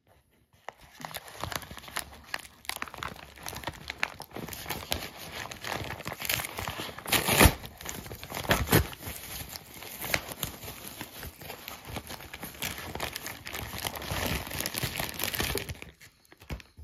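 Brown paper mailing envelope crinkling and tearing as it is handled and opened by hand: an unbroken run of rustles and crackles, loudest about seven seconds in.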